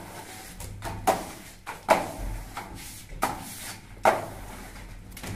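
Plastering floats pressed and scraped against wet gypsum plaster along a beam's edge: four short, sharp strokes about a second apart.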